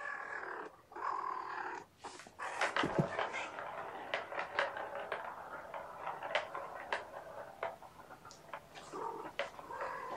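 A cat vocalizing, with many short clicks and taps mixed in.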